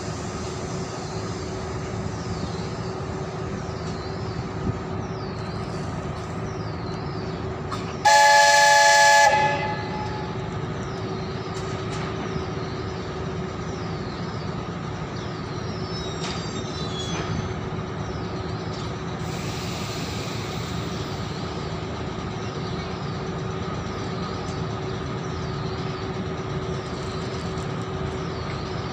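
VL10 electric locomotive standing with a steady electrical hum. About eight seconds in it gives one loud horn blast of about a second and a half, the departure signal.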